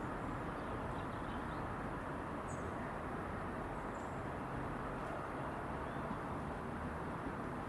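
ScotRail Class 158 diesel multiple unit's underfloor diesel engines running as the train comes in slowly over the points: a steady low rumble with no sharp events. A few short, faint high chirps sound now and then above it.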